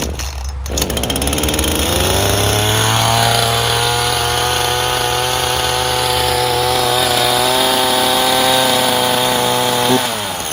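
Ryobi 37cc two-stroke gas chainsaw starting on a pull with the choke set to run after years unused. Its engine speed climbs over the first couple of seconds, holds steady and high, then drops off near the end.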